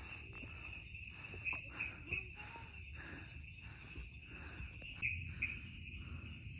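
Steady high-pitched chirring of night insects in the forest, with a few soft knocks of footsteps on the dirt trail.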